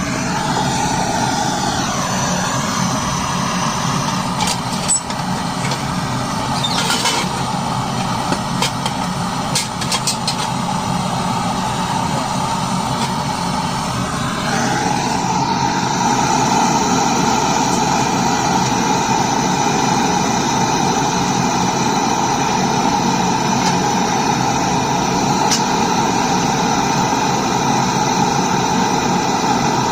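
A machine running steadily, a hum with a hiss over it. About halfway through it shifts with a brief rise in pitch, then carries on steady and slightly louder. A few light clicks come in the first half.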